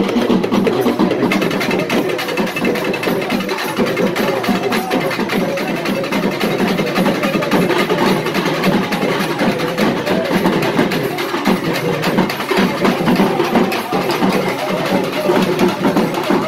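Music with dense, rapid drumming, loud and steady throughout.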